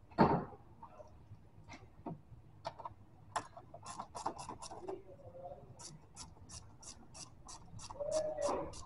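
Ratchet wrench clicking while the clamp on the intake air tube between the air filter and the intake manifold is loosened. Scattered clicks at first, then a steady run of about four clicks a second over the last three seconds. A single sharp knock comes just after the start and is the loudest sound.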